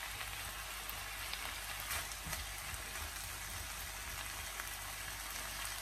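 Chicken, vegetables and noodles sizzling steadily in a hot wok as they are stir-fried, with a few faint clicks of the spatula against the pan.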